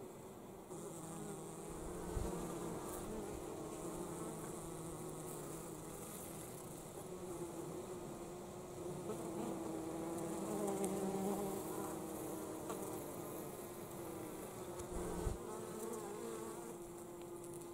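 Honey bees buzzing at a hive entrance: a steady hum of wingbeats, with a second, lower hum coming and going as bees fly close. Two short low thumps, about two seconds in and again about fifteen seconds in.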